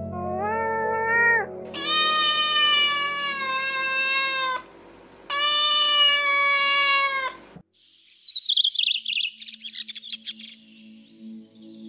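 Domestic cat meowing three times: a short call, then two long drawn-out meows. After that come rapid high bird chirps over soft background music.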